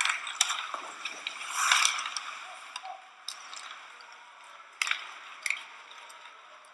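Ice hockey play on the rink: skates scraping the ice, with a louder scrape about two seconds in and a few sharp clacks of sticks and puck, the clearest two about five seconds in. The sound grows fainter toward the end.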